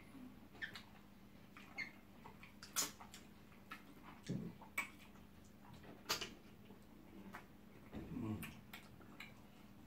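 Faint eating sounds from two people finishing okra soup by hand from clay pots: scattered mouth smacks and sharp clicks. There are two short low murmurs, about four and eight seconds in.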